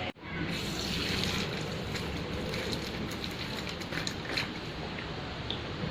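Running tap water over hands being washed, with small splashes and clicks.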